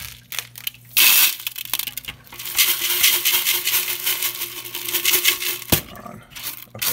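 Aquarium gravel poured from a bowl into a clear tank, the small pebbles rattling and clattering. There is a loud rush of gravel about a second in, steady clattering after it, and a single sharp knock near the end.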